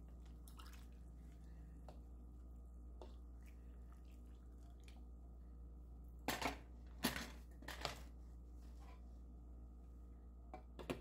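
A few light clinks and scrapes of a ladle against a stainless steel pot about six to eight seconds in, then a glass lid clinking down onto the pot near the end, over a faint steady hum.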